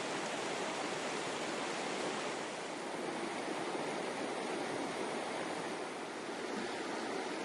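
Falling water rushing steadily: an even hiss with no surges or breaks.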